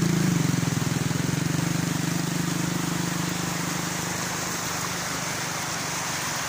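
Small motorcycle engine running as the bike rides off through shallow floodwater, fading out over the first three or four seconds. It leaves the steady rush of fast-flowing floodwater.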